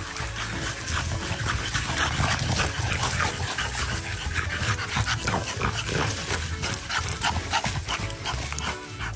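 A dog making noises over background music with a low, repeating bass beat.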